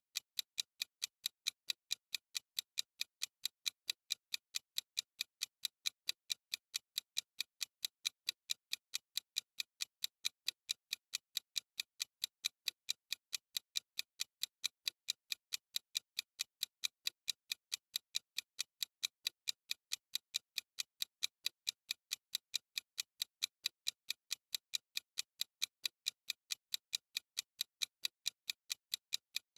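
Clock-style ticking sound effect of a countdown timer: sharp, high ticks repeating at a steady, even rate with no change.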